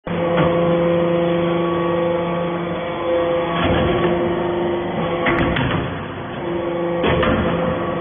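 Hydraulic copper-shavings briquetting press running: a steady hum from its hydraulic power unit, broken every second or two by short metallic clacks as the ram and valves cycle while compacting the chips into briquettes.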